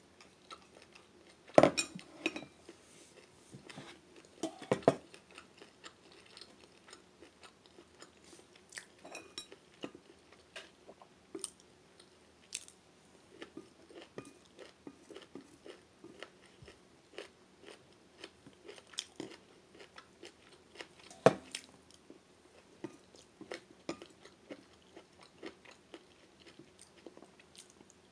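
Close-up mouth sounds of a person chewing and biting rice noodles and vegetables: many small wet clicks. Three louder sharp knocks of chopsticks or tableware come near the start, about five seconds in, and about 21 seconds in.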